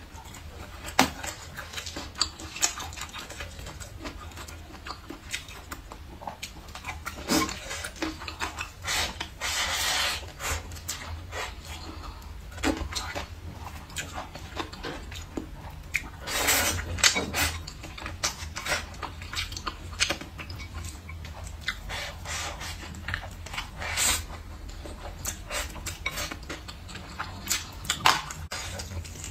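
Close-miked eating of rice, greens and braised meat: chewing and wet mouth sounds, with chopsticks clicking against a ceramic bowl, and a couple of longer, louder stretches of eating noise.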